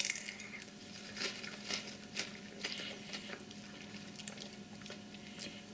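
A metal fork picking at creamy turkey pie filling on a ceramic plate: faint, scattered clicks, the sharpest one at the very start, over a steady low hum.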